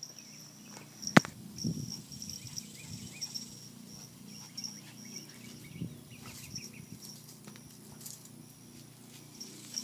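Insects chirping in steady, evenly repeated high-pitched pulses, with a single sharp knock about a second in.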